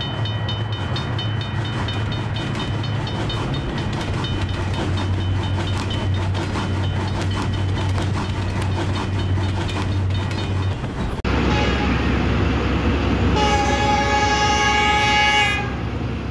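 Animated-intro train sound effect for the first ten seconds or so: a steady rumble with regular clickety-clack wheel clicks. Then a cut to an approaching diesel locomotive's engine rumble, and a long blast on its multi-tone air horn lasting about two seconds, a little over halfway in, which is the loudest sound.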